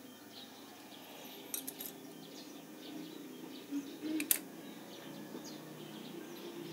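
Small metal parts of a spinning reel clicking and clinking as they are handled during disassembly: a cluster of sharp clicks about a second and a half in and the loudest click a little past four seconds. Birds chirp faintly in the background.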